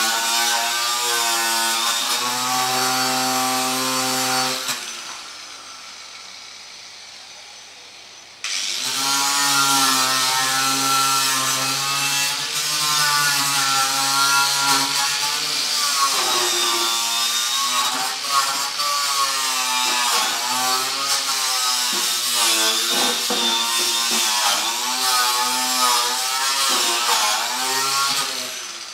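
Handheld electric power tool running against a metal ammunition box, its pitch wavering as it bears on the metal. It is switched off about five seconds in, winds down, and starts again about three seconds later.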